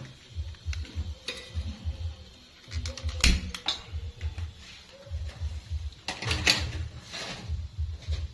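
A few sharp metal knocks and clanks as a steel wok and the burner rack of a portable gas-cylinder stove are handled. The loudest comes about three seconds in and more follow around six to seven seconds, over a low rumble of handling noise on the microphone.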